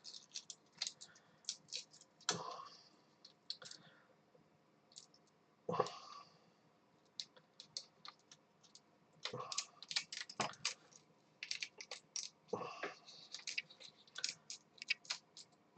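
Faint, irregular small clicks and short scrapes of a flat-blade screwdriver tip working under an adhesive Mylar contact sheet on a keyboard circuit board, prising and rolling the sheet off.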